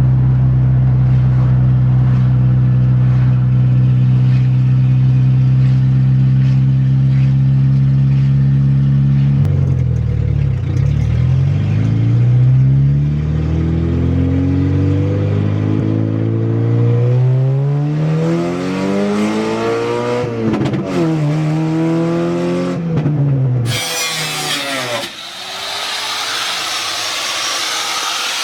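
Ford Tempo engine through a loud straight-pipe exhaust, running steadily for about ten seconds, then revving up and dropping back several times. Near the end it cuts off and a power tool takes over, a whirring hiss whose tone rises as it spins up.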